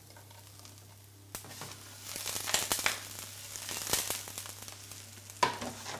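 Diced peppers, courgette and onion crackling and sizzling in hot oil in a non-stick frying pan as the pan is moved about on the hob, with a sharp knock near the end.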